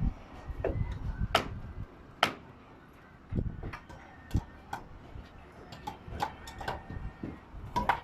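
Irregular sharp knocks and taps, some a second or more apart, typical of hammering on timber roof formwork, with a low rumble in the first couple of seconds.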